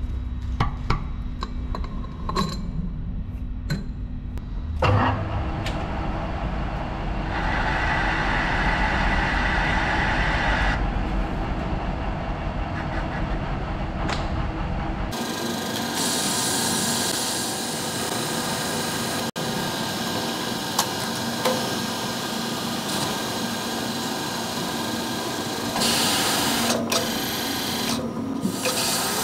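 Hafco TM-1740G centre lathe running and cutting an external thread on a high-tensile steel bar, a steady machine drone with the hiss and scrape of the tool in the metal. A few sharp clicks and knocks come first, before the cutting noise builds.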